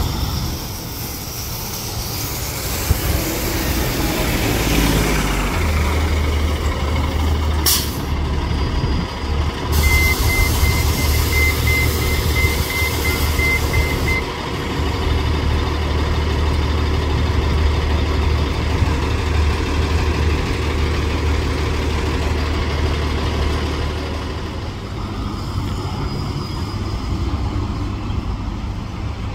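City transit bus with its diesel engine running as it pulls up and stands at a stop, with a short sharp air-brake hiss about eight seconds in. Soon after, a beeper sounds about two to three times a second over a hiss of air for about four seconds, then stops.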